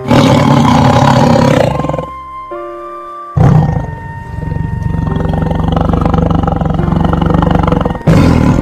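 Tigers roaring in three loud bouts, the middle one long, over background music.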